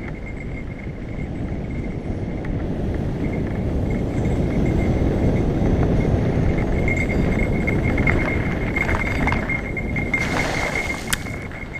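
Mountain bike descending a dirt trail at speed: tyre rumble and wind buffeting on the helmet-mounted camera, with a steady high buzz running through it. About ten seconds in, a short spattering splash as the tyres run through a wet, muddy patch.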